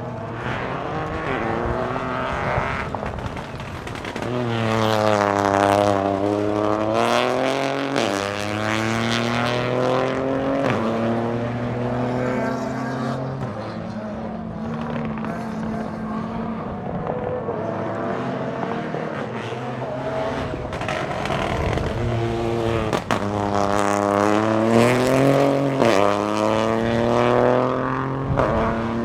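Peugeot 208 Rally4's 1.2-litre turbocharged three-cylinder engine under hard use, its revs repeatedly climbing and dropping through the gears. A few sharp cracks sound along the way, from the car's crackle/anti-lag map.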